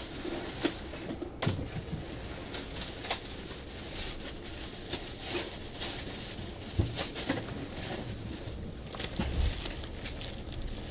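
Station platform ambience: scattered footsteps and short clicks and knocks over a steady background hum.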